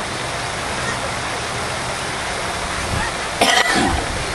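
Steady, even rushing noise outdoors, with a short, loud pitched call lasting about half a second, about three and a half seconds in.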